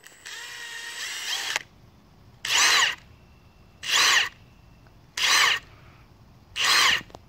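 Two cordless impact wrenches, a Milwaukee M18 Fuel Gen 2 (2767) and a Makita XWT08, driving lag bolts into wood together: a steady motor whine for about a second and a half, then four short, louder bursts about a second and a half apart.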